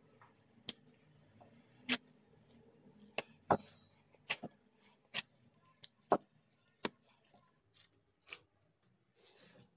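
Dough being kneaded by hands in plastic gloves in a ceramic bowl: about ten sharp clicks and knocks at irregular intervals, then a short soft rub near the end.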